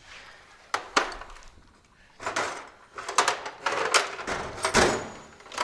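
Irregular clanks and clatter of metal being handled, likely tools or wheel nuts. Two sharp knocks come about a second in, then a run of rattling clatters, the loudest near the end with a brief metallic ring.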